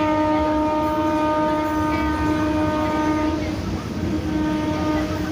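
Indian Railways EMU local train sounding its horn in one long, steady blast that eases off about three seconds in, over the rumble and clatter of the coaches running past close by.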